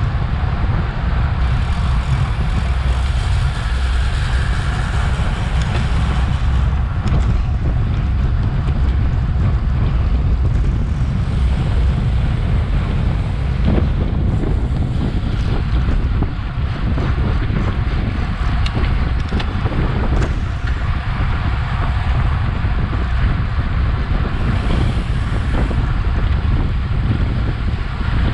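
Wind buffeting the microphone of a bike-mounted action camera while riding at speed, a steady loud rumble with a few light clicks.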